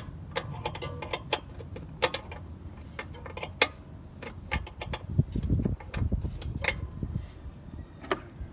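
Metal hand tools clinking and clattering in irregular sharp clicks as a set of wrenches and sockets is rummaged through for metric sizes, with duller knocks of handling a little past the middle.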